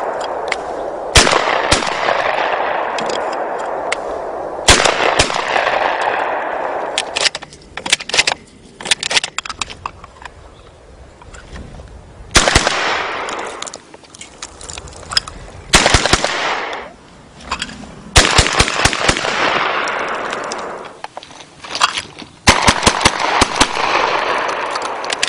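Shotgun blasts fired in quick strings, often several within a second or two, each one trailing a long rolling echo that fades over a couple of seconds.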